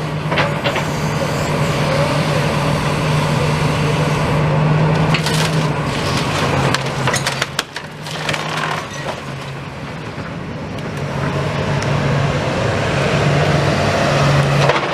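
Demolition excavator's engine running steadily as it pulls a wall down bit by bit, with several bursts of debris crunching and cracking.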